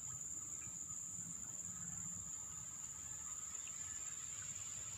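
Insects chirring steadily at one high, unbroken pitch, with a faint low rumble underneath.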